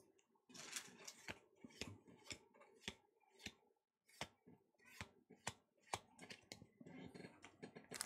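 Pokémon trading cards being flicked through one by one in the hands: a faint, irregular series of light card snaps and slides, with denser rustling near the end as the foil booster packs are handled.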